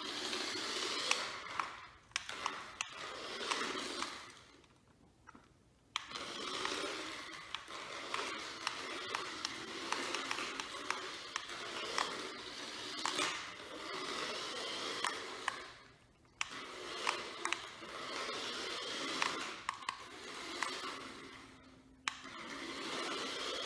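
Toy RC car's small electric motor and wheels running and scraping over the floor, with clicks and knocks from the papier-mache body, stopping briefly three times.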